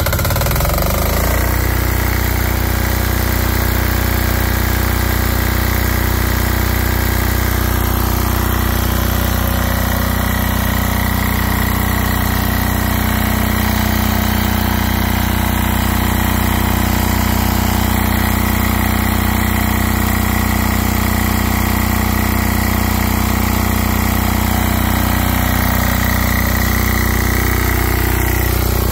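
Generac XD5000E's single-cylinder Yanmar diesel engine running steadily just after an electric start, coming up to speed over about the first second and a half and then holding an even speed.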